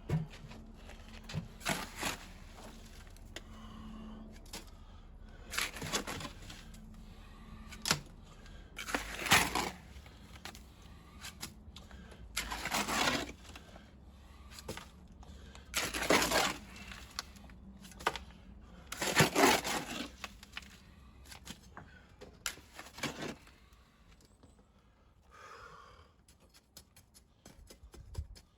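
Repeated scraping strokes of a hand tool on gritty material, five loud ones about a second long at intervals of about three seconds, with lighter clicks and knocks between them.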